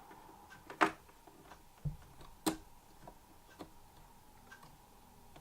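Handling clicks from an iMac's memory compartment as the RAM is fitted: a sharp click, a dull thump, then another sharp click, with a few faint ticks between.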